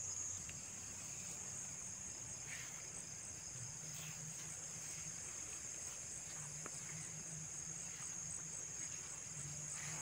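Night insects chirring: a steady, high-pitched trill with a faint even pulse running underneath.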